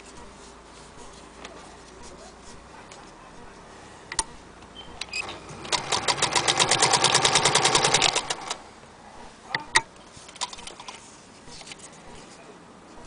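Singer 201K electric sewing machine running at speed for about two and a half seconds, its needle stitching in a rapid, even rhythm of roughly fifteen strokes a second. A few sharp clicks come shortly before and after the run.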